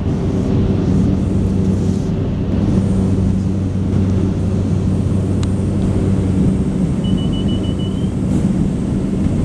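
Small passenger plane's engines and propellers giving a steady drone inside the cabin on the landing approach. A short run of high beeps comes about seven seconds in.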